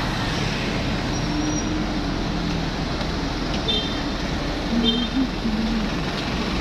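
Road traffic noise with a minibus engine running close by as the bus pulls up alongside. Two brief high beeps sound about halfway through.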